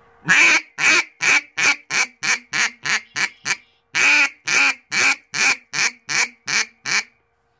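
Hobo Prime Meat duck call blown in two descending series of quacks, each opening with a long quack and running into about ten shorter, quicker ones, with a short break between the series. The two series are blown to compare air from the diaphragm with puffed-out cheeks.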